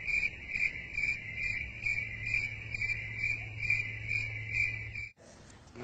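Crickets chirping in an even pulse, about three chirps a second, over a low steady hum; it cuts off suddenly about five seconds in. This is the cricket sound effect that marks an awkward silence after a question goes unanswered.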